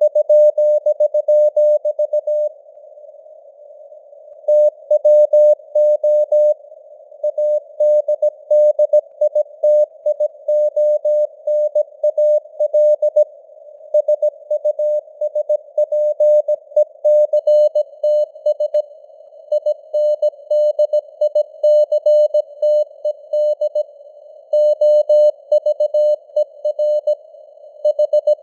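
Morse code (CW) tone keyed at 17 words per minute, a single steady pitch clicking on and off in dots and dashes over a narrow band of simulated radio hiss. There are short gaps between letters and words, and a longer break about three seconds in.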